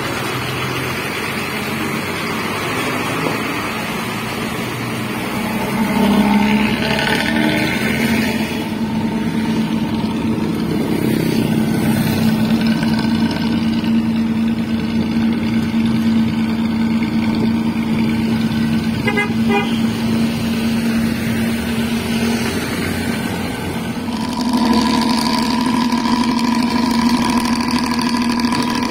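A Luragung-style intercity bus with a loud, raspy aftermarket exhaust (knalpot cempreng) running as the bus pulls away on light throttle. It makes a steady low drone that gets louder about six seconds in and again near the end.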